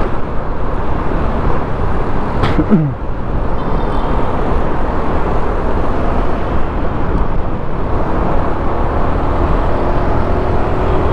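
Riding a Honda XRM 125 motorcycle: steady wind and road rush on the microphone over the running single-cylinder engine. About two and a half seconds in there is a short sharp sound that falls in pitch.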